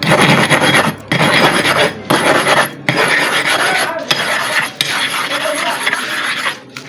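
Sharpening stone scraped back and forth on an abrasive surface, a rough gritty grinding in strokes of about a second with brief breaks between. The stone's worn, hollowed centre is being ground level.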